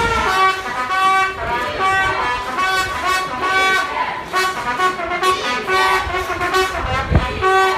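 A horn tooting short blasts on one steady pitch, over and over in a rhythm, over crowd voices in the stands. There is a low thump near the end.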